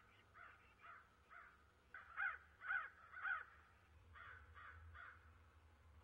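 Crows cawing: a string of harsh caws, faint at first, three louder ones about two to three and a half seconds in, then fainter ones again. They are the mobbing calls of crows harassing a barred owl.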